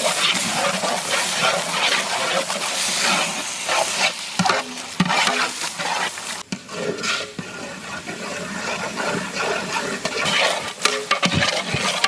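Chopped tomatoes frying in hot oil in a large biryani pot, sizzling while a ladle stirs and scrapes them through at an irregular pace. It eases off somewhat about halfway through.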